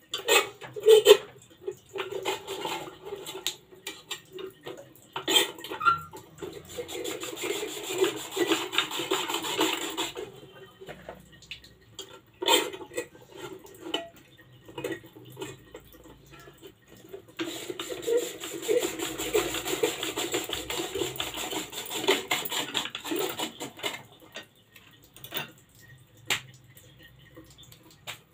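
Hand-cranked stainless-steel potato chips slicer being turned, its blade rasping through a potato in two long runs of several seconds each. Scattered metallic knocks and clinks fall between the runs.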